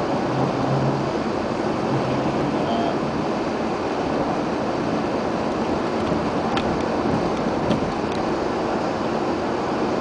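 Steady road, tyre and wind noise inside a car's cabin, driving at about 80 km/h on a snowy highway, with a few faint clicks in the second half.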